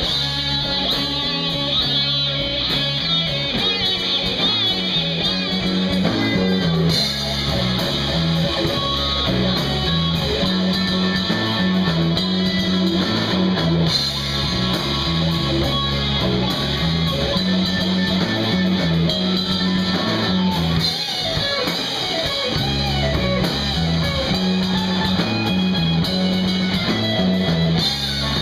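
Live rock band playing, with electric guitar and a drum kit.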